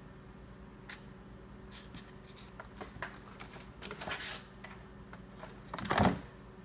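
Light cardboard tapping and rustling as kittens paw at and climb an empty cereal box. About six seconds in, the box tips over and hits the hardwood floor with a loud clatter.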